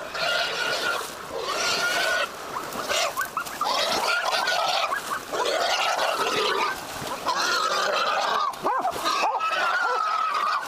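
A caught wild hog squealing over and over: about seven long, shrill squeals of roughly a second each, one after another.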